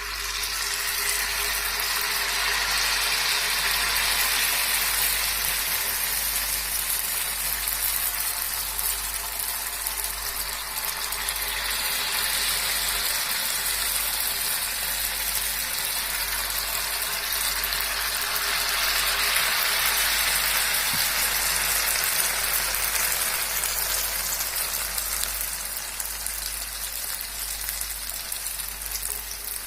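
Jalebi batter frying in hot oil, a steady sizzle that swells in the first second as the batter goes in and then holds.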